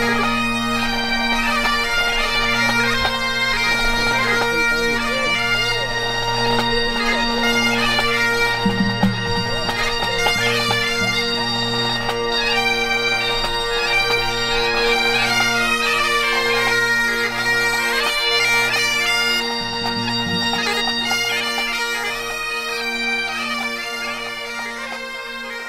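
A pipe band's Highland bagpipes playing a tune on the march, steady drones under the chanter melody. The lowest drone drops out about twenty seconds in, and the music grows quieter near the end.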